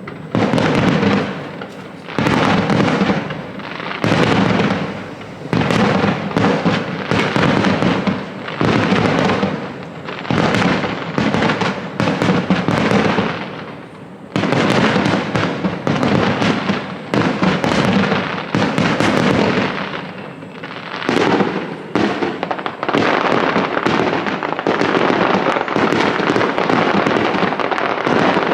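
Fireworks display: aerial shells bursting one after another, each bang trailing off, with brief lulls and a nearly continuous barrage in the last third.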